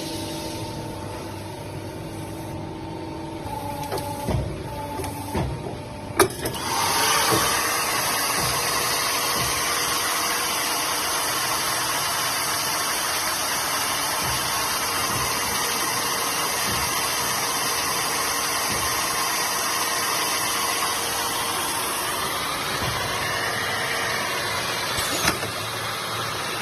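Pipe collar-drawing machine at work. A steady motor hum with a few knocks, then a sharp click about six seconds in. The machine then runs with a louder, even mechanical noise for the rest of the time, with one more click near the end.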